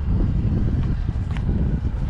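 Wind buffeting the microphone: a gusty low rumble, with a faint click about one and a half seconds in.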